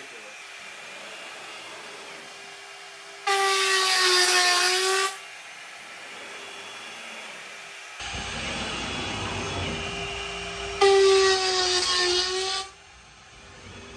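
CNC router spindle whining steadily at 24,000 rpm. Twice, for about two seconds each, a quarter-inch upcut spiral bit cuts a quarter-inch-deep line through plywood at a 1,250 inches-per-minute feed. During each pass the sound is much louder and the whine sags in pitch under the load.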